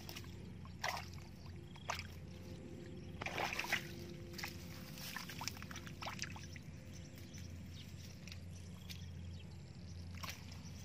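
Hands splashing and sloshing in shallow muddy water while fish are caught, in short irregular splashes, the loudest a little over three seconds in, over a steady low hum.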